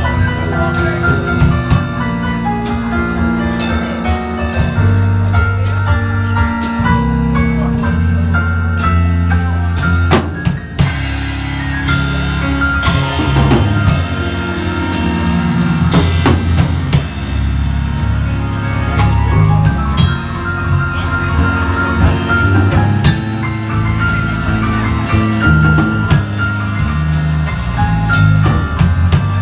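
Live band playing an instrumental passage with a drum kit to the fore: steady cymbal and snare strokes and bass drum over an electric bass line, with keyboard.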